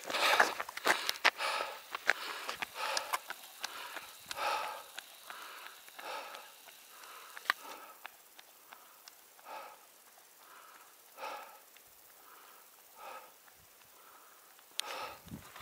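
A runner's hard breathing close to the microphone, one breath about every second, easing and getting quieter in the second half. There are a few small sharp clicks.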